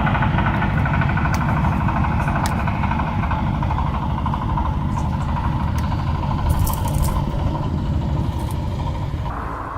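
A motor or engine running steadily with a heavy low rumble, dropping away shortly before the end.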